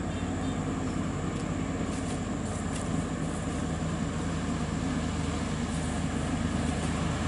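Scania R580's V8 diesel engine pulling steadily under a heavy load of about 30 tonnes, a low, even drone.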